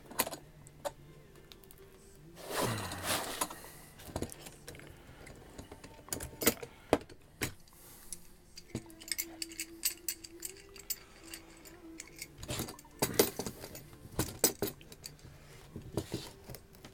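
Steel G-clamps being repositioned and screwed tighter on a wooden cigar-box press: scattered metal clicks and clinks with light wooden knocks, and two longer, louder noises about two and a half seconds in and again near thirteen seconds.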